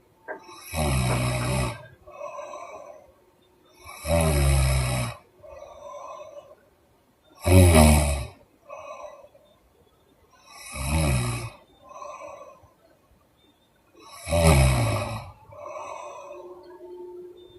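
A woman snoring heavily in deep sleep: five loud snores, one about every three and a half seconds, each followed by a softer, shorter breath.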